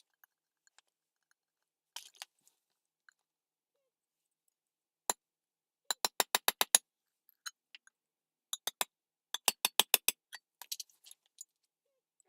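Sharp knocks in quick runs of several a second: a single knock about five seconds in, a run of about seven, a group of three, then another run of about six, with a few faint taps after.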